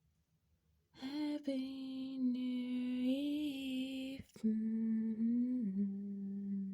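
A voice humming two long held notes with a short break between them, the second stepping down in pitch partway through.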